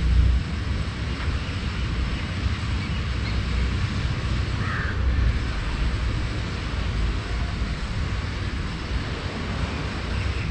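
City ambience: a steady low rumble of traffic and wind on the microphone, with a short gust right at the start and a brief higher-pitched sound about halfway through.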